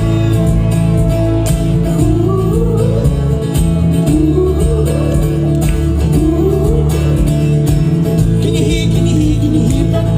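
Live band playing an instrumental break: a steady drum beat and bass under a melody line with sliding notes.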